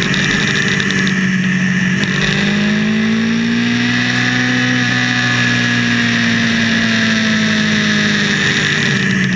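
Motorcycle engine running on the road, its pitch rising over the first few seconds and then falling slowly as it pulls and eases off, over steady wind and road noise.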